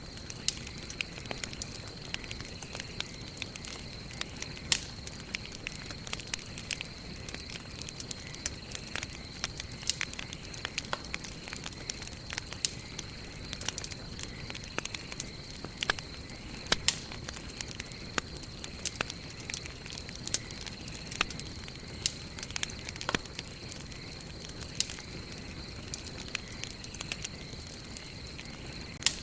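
Wood campfire burning, with sharp, irregular crackles and pops several times a second over a soft steady hiss.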